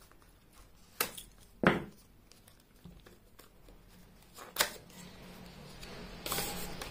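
Craft knife slitting the seal on a small cardboard box, heard as a few sharp clicks, then a rough sliding rustle of cardboard that grows louder near the end as the box is opened.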